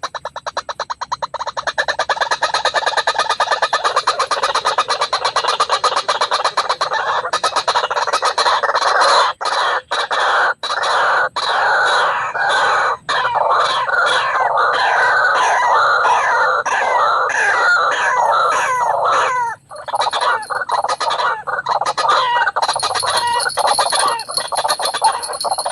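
White-breasted waterhen calling: a loud, fast run of repeated croaking calls that goes on almost without pause, breaking off once briefly and then starting again.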